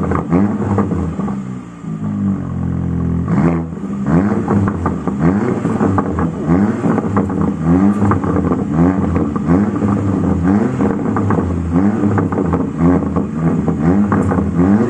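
Porsche Macan V6 engine revved from just behind its quad exhaust tips in quick throttle blips, roughly one a second, each a short rise in pitch that drops straight back. It settles briefly to a steady idle about two seconds in before the blipping resumes.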